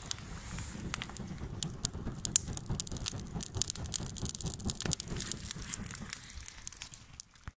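Charcoal fire crackling and popping with many sharp snaps while it is being fanned, over a low rush of air; it catching well. The sound cuts off abruptly near the end.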